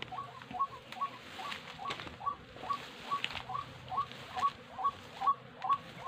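A bird call repeated steadily about twice a second, each a short hooked note, over rustling of brush and a few light clicks as someone pushes through undergrowth.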